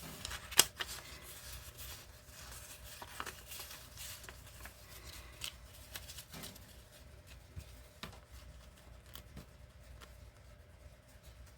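Small sheets of printer paper being handled and tapped to square up a stack of calendar pages: scattered rustles and light taps, the sharpest about half a second in.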